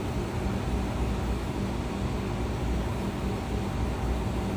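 Steady low machinery drone with a few constant hum tones running under it, unchanging throughout.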